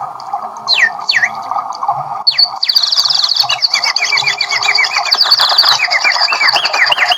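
Horn loudspeaker, driven by a small battery amplifier, playing a test sound: a string of quick falling whistled chirps over a rough buzzing tone. The chirps come in a few at first and then crowd together, several a second.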